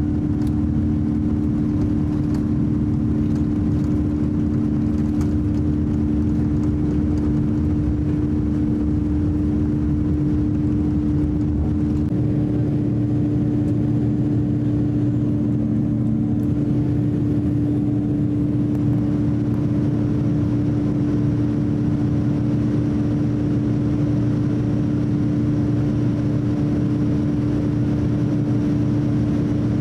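Cabin noise of a Boeing 787-9 on takeoff: its Rolls-Royce Trent 1000 engines running at high power, a dense, even rumble with a strong steady hum over it. The low rumble grows heavier about twelve seconds in as the jet leaves the runway and climbs.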